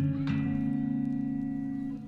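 Background music led by guitar, over steady low notes.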